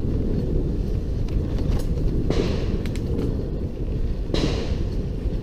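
Wind buffeting the microphone over the rumble of a mountain bike riding fast down a dirt trail, with two short hissing bursts about two and four seconds in.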